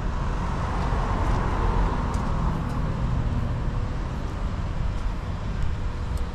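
Large Volvo diesel truck engine idling with a steady low rumble.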